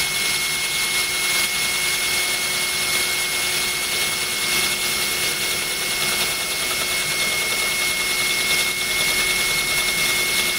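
Cordless drill running steadily, grinding a hole into a glass bottle with a tubular bit while a stream of water pours over the cutting spot, with a constant thin whine over an even hiss.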